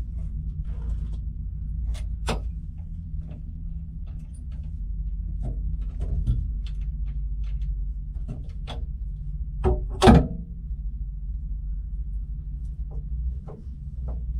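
Scattered metal clicks and knocks from hands working the lid and basket of a boat engine's raw-water strainer, with one louder clunk about ten seconds in. A steady low hum runs underneath.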